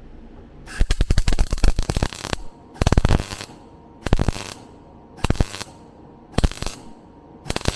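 Welder laying short stitch welds on the car's sheet-steel floor pan: one long burst of crackling, then short crackling bursts about once a second, with a faint steady hum between them.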